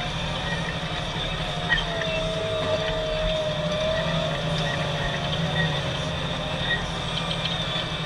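Deutz 7250 tractor engine running steadily under ploughing load, with a wavering whine above the rumble and one sharp click just under two seconds in.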